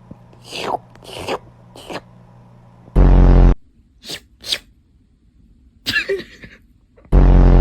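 A person's voice making cat-like noises: a few short breathy, sneeze-like puffs, then two loud, buzzy, low half-second bursts, one in the middle and one near the end.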